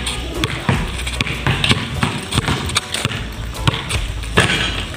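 Basketball dribbled on concrete, bouncing about twice a second.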